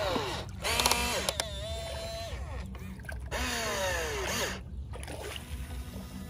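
Huina RC toy excavator's small electric motors whining as the boom and bucket move, in short runs that hold a steady pitch, then slide down in pitch as each movement slows, with a few sharp clicks about a second in.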